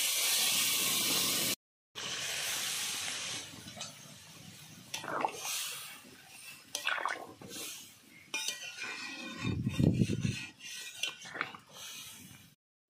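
Water poured from a plate into a hot metal pan of fried chicken and potatoes, hissing, then a metal ladle stirring the watery curry, with light clinks and scrapes against the pan. A louder dull bump about ten seconds in.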